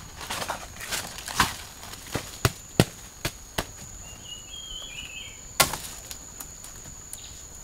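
Bare feet shuffling and stepping through dry leaf litter, with several sharp cracks and knocks as a woven basket is handled beside a bamboo frame. A steady high insect drone runs underneath, and a bird chirps briefly near the middle.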